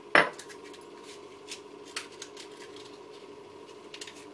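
A single sharp knock of something set down or handled on a hard countertop, followed by a few faint clicks and rustles of handling over a low steady hum.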